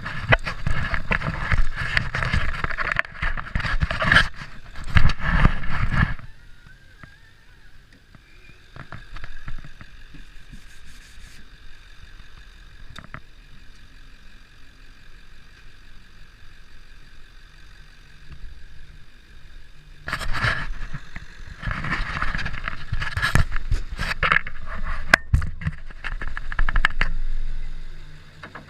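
Chevrolet Cavalier being driven hard. Loud, rough road and vehicle noise fills about the first six seconds and comes back from about twenty seconds in, with quieter steady running and a thin whine in between.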